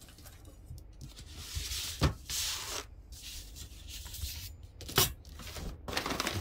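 Metal drafting rulers set down on a paper-covered table with two sharp clacks, about two seconds in and again about five seconds in, with kraft paper sliding and rustling after the first clack and again near the end.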